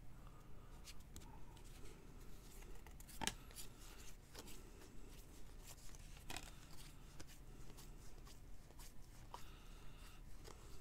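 Trading cards being handled and flipped through: faint, irregular clicks and light rubs of card on card, the sharpest about three and six seconds in, over a low steady hum.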